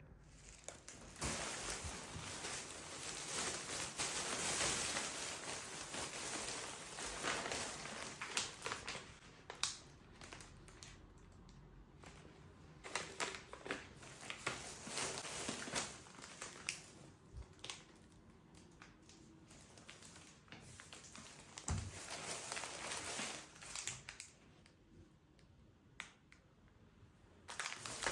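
Rustling and crinkling of something being handled, with many light clicks and taps and a soft thump a little past the middle. It comes in busy stretches, with quieter gaps in between and a lull shortly before the end.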